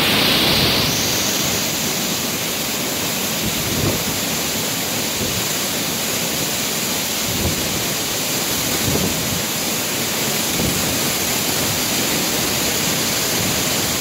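Waterfall's steady rush of water plunging onto rock close by.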